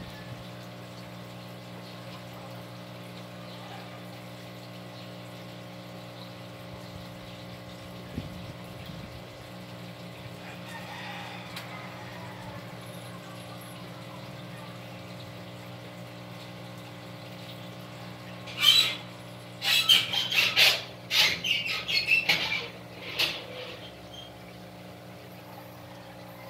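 Syrian hamsters squealing in a run of short, harsh bursts about two-thirds of the way through, over a steady low hum.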